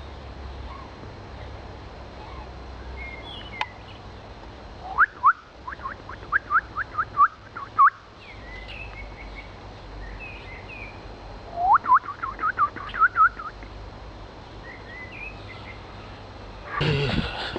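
Songbird singing: two trills of about eight quick rising chirps each, with scattered fainter chirps between, over a steady low background rumble. A sudden louder noise starts near the end.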